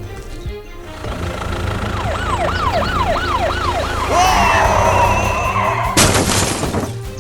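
A police siren sound effect over background music, yelping rapidly up and down about five times. It is followed by a warbling tone and about a second of loud hiss near the end.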